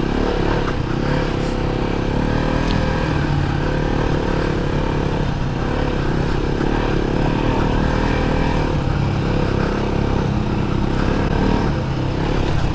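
Kawasaki KLR250 dual-sport motorcycle's single-cylinder four-stroke engine running under load on a dirt trail, its pitch shifting up and down with the throttle.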